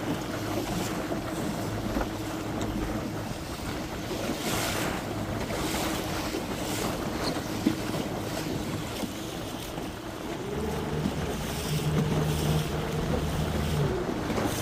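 Coach boat's outboard motor running under a wash of wind buffeting the microphone and choppy waves splashing against the hull; the motor picks up speed about ten seconds in and eases back near the end.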